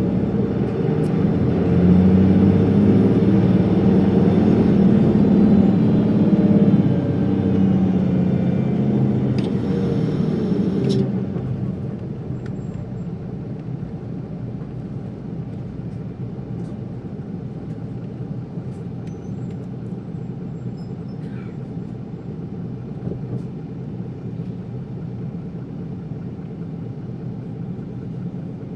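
Isuzu Erga city bus's inline-six diesel engine heard from inside the cabin. It pulls loudly under load for about the first eleven seconds, then the revs fall away and it settles into a quieter, steady running rumble.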